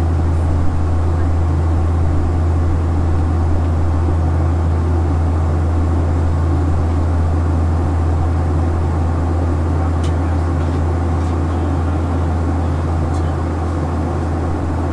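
Steady cabin drone of a Boeing 737-800 in flight: a deep hum from its CFM56-7B turbofan engines under the rush of air over the fuselage, easing off slightly near the end.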